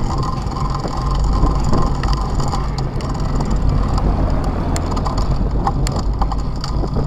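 Steady low rumble of riding a road bike at slow speed, with a few faint clicks.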